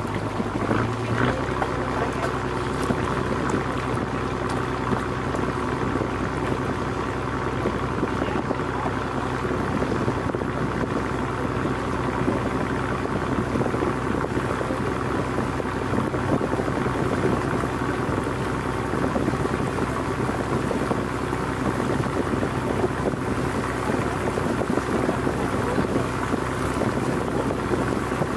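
Engine of an old wooden fishing boat running steadily under way, a low even hum over a steady rushing noise. Its note shifts slightly about a second in.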